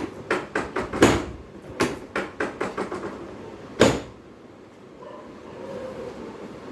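A quick run of short knocks and clacks, about a dozen in the first three seconds, then a single louder knock near four seconds: handling and adjustment of a patient on a chiropractic treatment table.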